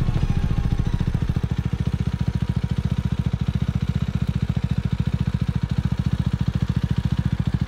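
Motorcycle engine idling steadily, its exhaust beating in quick, even pulses.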